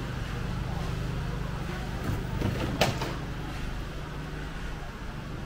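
Ambience of a narrow city street: a steady low machine hum under general street noise, with one sharp knock about three seconds in.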